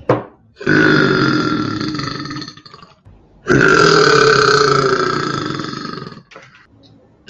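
A person belching: a short burp at the start, then two long, drawn-out belches of about two and a half seconds each, the second beginning about three and a half seconds in. Each one holds a steady pitch and fades as it goes.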